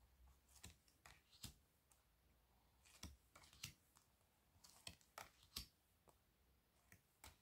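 Faint, irregular clicks and soft slides of glossy oracle cards being flipped one at a time through a new deck by hand, about nine small ticks spaced unevenly.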